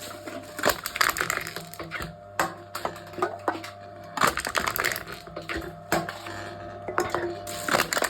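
Aluminum drink cans being crushed by a machine: repeated crunching and crackling of crumpling thin metal, a fresh crunch every second or so, over a steady low hum.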